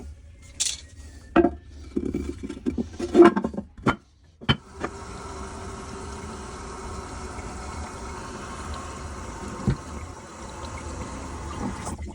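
A few knocks and clatters in the first seconds, then a steady hiss of water running into the toilet tank through a newly installed fill valve as the tank refills after a flush.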